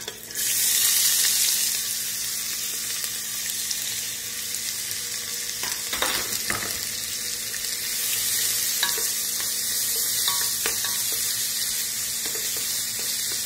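Chopped onion and peppers tipped into hot lard in a pressure cooker start sizzling at once, loudest in the first second or two, then fry steadily. A wooden spoon stirs them, scraping and knocking against the pot a few times.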